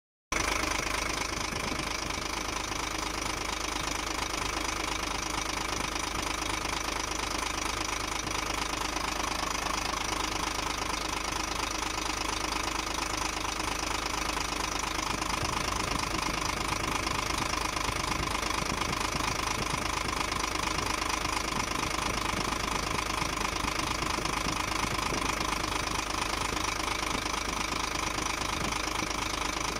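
CNHTC HOWO 371 truck's diesel engine idling steadily with a knock, which the owner puts down to fuel knocking.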